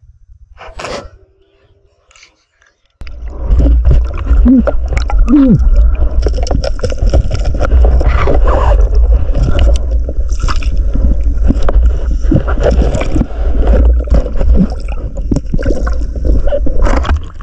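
Underwater through a camera housing: a speargun fires with one sharp snap about a second in. From about three seconds on comes a loud, steady low rumble of churning water with gurgling, bubbles and small knocks as the diver handles the speared fish.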